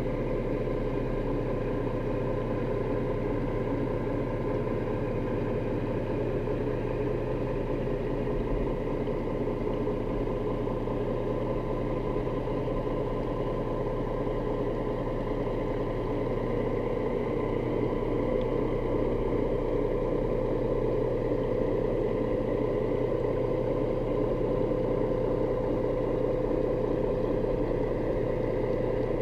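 Boat motor running steadily, heard underwater: a constant low hum with a steady whine above it.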